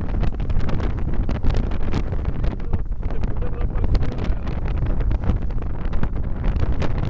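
Gusty wind buffeting the camera microphone, a heavy rumble with irregular loud gusts.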